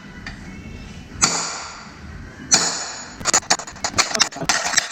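Hammer striking steel rear-axle parts to knock a seized piece free. Two single blows ring out about a second apart, then a quick run of rapid blows starts near the end.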